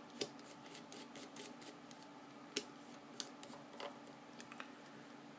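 Light, scattered metal clicks and ticks as the small parts and screws of a Benchmade Griptilian folding knife are handled and fitted during reassembly. The sharpest clicks come about a quarter second in, near two and a half seconds and just after three seconds, over a faint steady hum.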